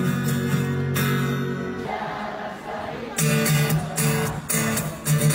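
Live acoustic guitar and singing, amplified through a concert PA. A ringing chord breaks off about two seconds in, then short strummed chords start again about a second later.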